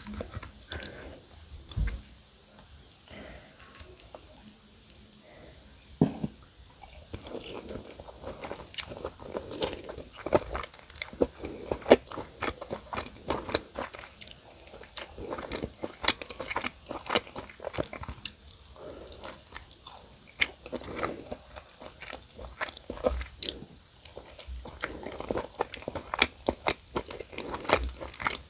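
Close-up crunching and chewing of crispy fried chicken: dense sharp crackles of the coating breaking between the teeth, with a couple of short quieter pauses.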